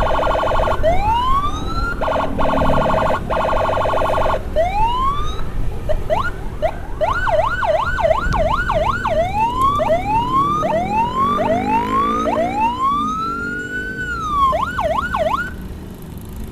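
Ambulance's electronic siren switching between patterns: a steady tone, slow rising-and-falling wails, and a fast yelp. Low road and engine rumble runs underneath.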